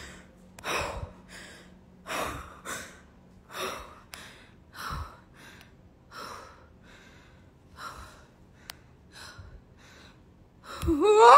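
A frightened woman breathing hard in quick, noisy gasps, in and out about every half second, the breaths growing fainter after about six seconds. Near the end her voice breaks in with a loud, rising squeal.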